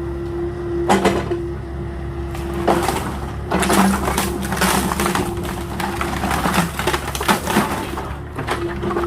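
Mini excavator engine running steadily while wooden pallets crack and splinter under its bucket, with sharp snaps about a second in and a dense run of cracking from about three to five seconds in.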